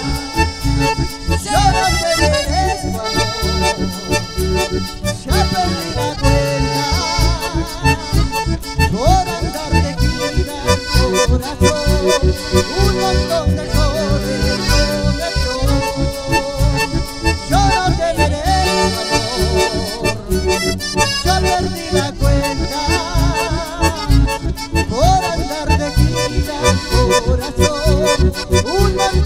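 Instrumental passage of live Latin American folk band music, led by a button accordion and bandoneon over strummed guitars and bass, with a steady, even beat.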